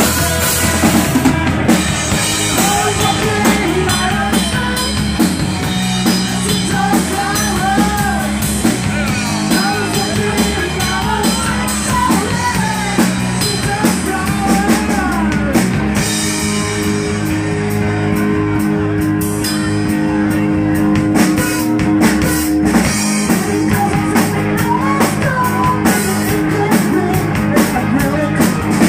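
Rock band playing live in a small room, drum kit with electric guitar. The drums keep a busy beat, and from about halfway in long low notes are held under it.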